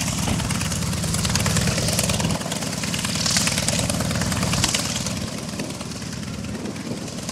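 Grumman FM-2 Wildcat's Wright R-1820 nine-cylinder radial engine running at low taxi power, a loud, pulsing rumble with propeller noise; it grows somewhat quieter after about five seconds.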